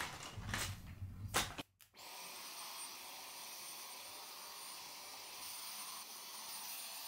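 A few knocks, then a cordless stick vacuum cleaner comes in about two seconds in and runs steadily: an even hiss of motor and suction with a constant high whine.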